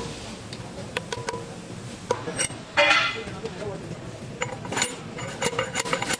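Metal tools and parts clinking in wheel bearing work, with a short loud scraping rasp about three seconds in and a quicker run of light ringing metal clicks near the end.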